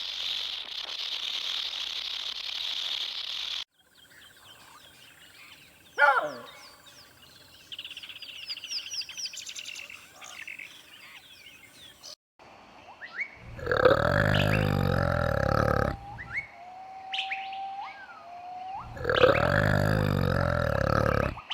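A run of wild animal sounds: a steady high hissing buzz for the first few seconds, then bird chirps and whistles, then two loud, deep, drawn-out calls of about two and a half seconds each.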